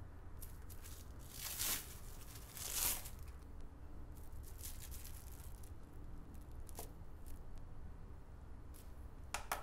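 Plastic cling film crinkling as it is peeled open from a slab of chilled pastry dough: two short rustles about a second apart, then faint small crackles and a sharp click near the end, over a low steady hum.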